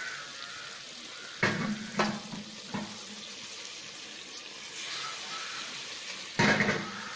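Mutton and spice masala frying in a little water in a metal pressure cooker pot, a steady sizzle: the bhuna stage, browning the meat. A wooden spoon stirs and knocks against the pot, three knocks about a second and a half in and a louder one near the end.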